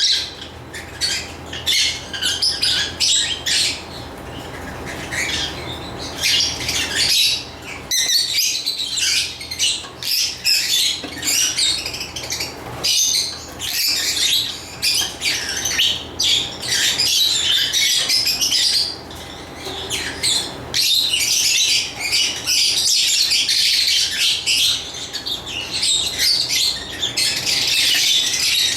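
Lovebirds chirping and squawking in a rapid, near-continuous chatter of shrill, high-pitched calls.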